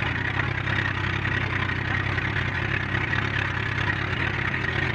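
Outrigger boat's (bangka) engine running steadily while the boat is underway.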